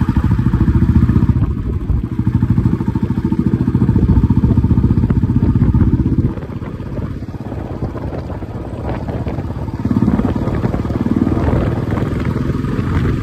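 Motorcycle engine running while riding, with a rapid low pulsing. It eases off about six seconds in and picks up again about ten seconds in.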